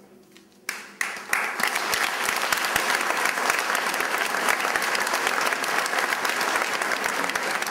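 Audience applause. A first clap comes under a second in, then the clapping swells quickly into a steady, dense round of applause from a large crowd.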